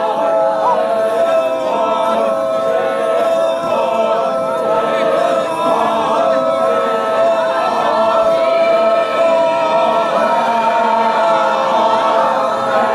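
Traditional Ao Naga folk song sung by a group of voices together without instruments, in long held notes.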